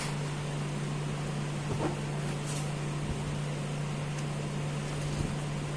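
A steady low hum, with a couple of faint light clicks, the first about two seconds in.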